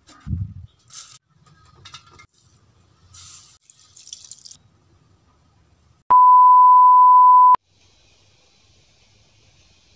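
A bump, then light rustles and taps as green chillies and salt are dropped onto coriander in a steel mixer-grinder jar. About six seconds in, a loud steady electronic beep at one pitch sounds for about a second and a half and cuts off sharply.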